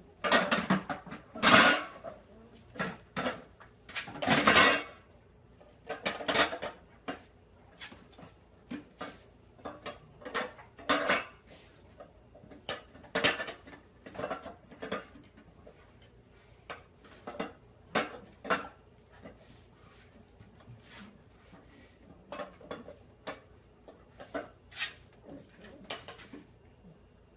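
Cans and jars clinking and knocking together on a corner cabinet's lazy Susan shelf as a pug pushes its head in among them and shifts them about. The knocks come irregularly, loudest and busiest in the first five seconds.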